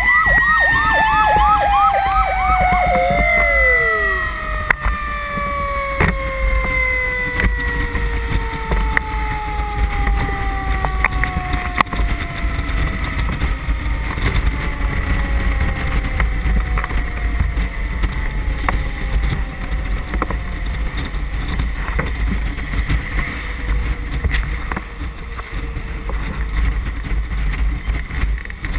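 Fire engine siren yelping rapidly for the first two or three seconds, then winding down, its pitch falling slowly over about ten seconds. Steady wind rumble and road noise on the roof-mounted microphone run underneath.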